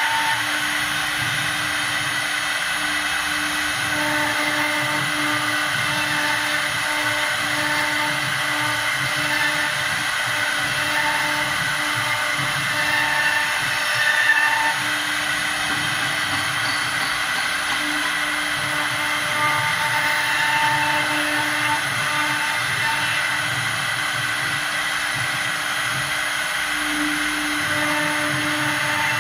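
Air-cooled CNC router spindle running steadily at speed while its bit carves lettering into a wooden cylinder turned on a rotary axis: a constant whine with cutting noise, some tones coming and going as the cut moves.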